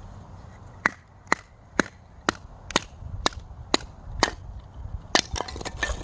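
A series of eight sharp, evenly spaced knocks, about two a second, followed near the end by a quicker, irregular run of clicks and taps.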